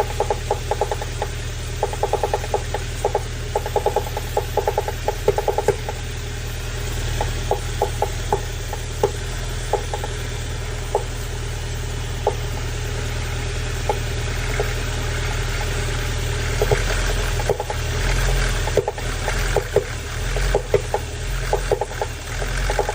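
VW/Audi EA888 turbocharged four-cylinder engine running with an abnormal ticking noise: rapid, dense ticks for the first several seconds, then scattered irregular clicks over the steady engine hum. The noise is abnormal, but no fault has been found for it.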